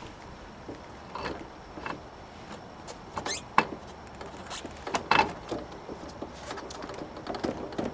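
Hand work on a scooter's rear wheel assembly: metal parts and tools clinking and scraping in separate short strokes, the loudest about three and five seconds in.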